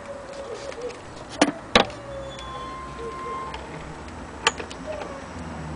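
Sharp clicks and knocks from hands handling the wooden case of an antique gramophone: two close together about a second and a half in, and one more near the end.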